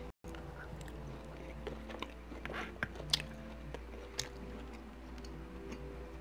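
Close-miked chewing of a mouthful of salmon: scattered soft, wet clicks and smacks from the mouth, over a faint steady hum.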